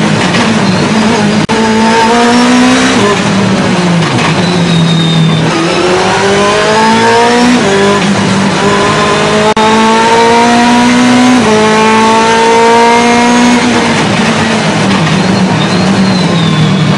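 Ferrari 430 GT2's V8 racing engine at full load, heard from inside the cockpit. It revs up through the gears with sharp steps at each upshift, and the pitch drops under braking and downshifting about three seconds in and again near the end.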